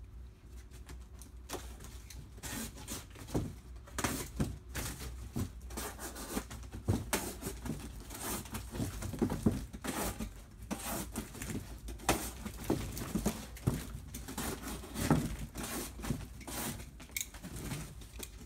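Corrugated cardboard box being cut and handled: irregular scraping, crackling and sharp knocks as slits are cut along its fold lines so the box can be bent round.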